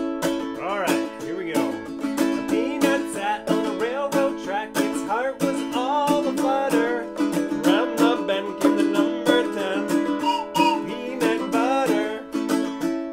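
Ukulele strummed in a steady rhythm, with a man singing over it.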